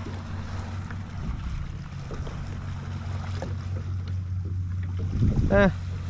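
Open-sea ambience on a kayak: wind and water noise over a steady low hum. A brief voice sound comes about five and a half seconds in.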